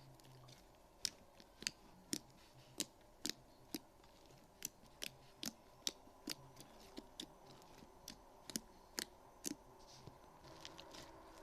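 Slime being squeezed and poked by hand, giving a series of sharp clicks and pops at uneven spacing, about two a second.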